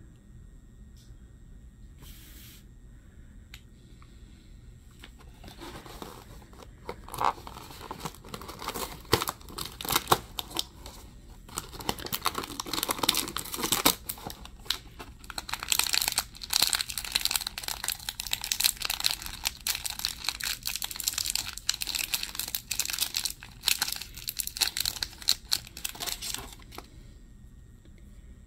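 Shiny plastic wrapper around a small toy figure being torn open and crumpled by hand: a busy run of crinkling and tearing that starts about five seconds in and stops shortly before the end.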